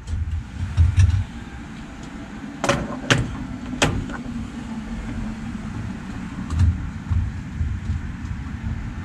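Three sharp metallic clanks with a brief ring as a gas pump fuel nozzle is handled and hung back in its holder on the pump, over low irregular rumbling thumps.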